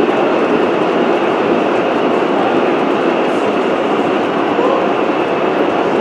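Gauge 1 model train running along the track, its wheels giving a steady, dense rattle on the rails.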